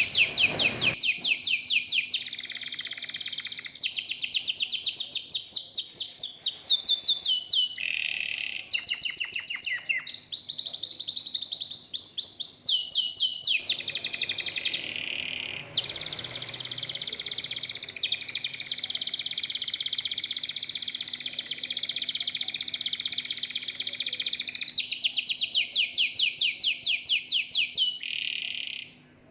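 Domestic canaries (local Indonesian canaries) in full song: continuous high-pitched rapid trills of repeated notes, switching between separate trill phrases and a long, dense rolling stretch in the middle.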